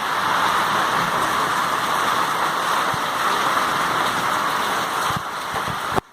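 Heavy downpour of rain: a dense, steady hiss of falling water, with a few faint low knocks, cutting off abruptly near the end.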